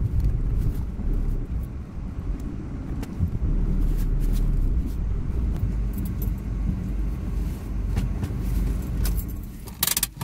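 Low rumble inside a car's cabin, with scattered light ticks. Just before the end comes a short clatter, and the rumble drops away abruptly.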